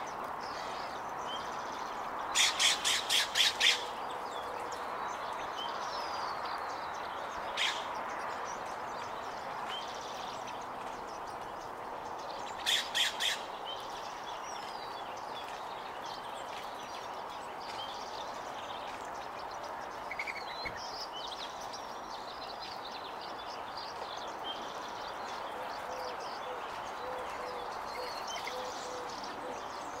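Loud, harsh bird squawks in quick runs: about six a couple of seconds in, a single one shortly after, and three more near the middle. Faint chirps and short twittering calls of small songbirds continue underneath.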